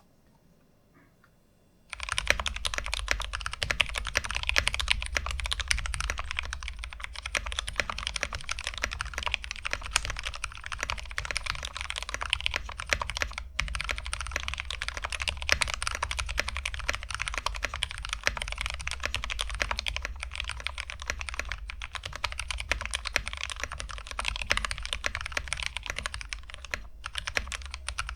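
Kemove Snowfox 61 mechanical keyboard being typed on fast and continuously, starting about two seconds in. Its lubed frankenswitches, Gateron Yellow stems in Halo True housings, give a smooth, deep keystroke sound.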